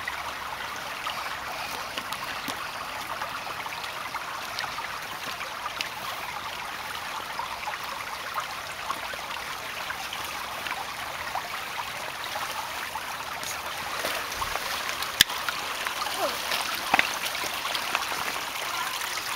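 Shallow rocky creek babbling and trickling over stones, steady throughout. A single sharp click stands out about fifteen seconds in.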